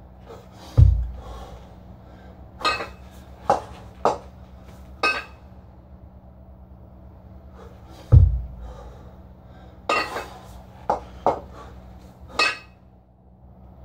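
Two kettlebells held at the chest knocking and clinking against each other in a series of sharp metallic knocks, with two heavy low thuds, one about a second in and another about eight seconds in.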